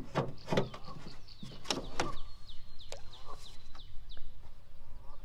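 A songbird singing a rapid series of short descending chirps, with a few sharp knocks in the first two seconds.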